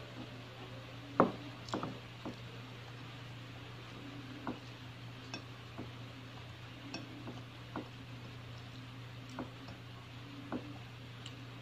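Fingers mixing rice and curry on a plate, with scattered light clicks and taps against the plate, the sharpest about a second in, over a steady low hum.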